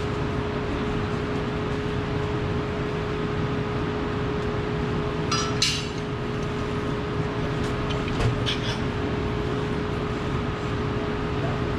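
Steady mechanical hum and noise of shop machinery, with a metal clink about halfway through and a few more metal taps a couple of seconds later.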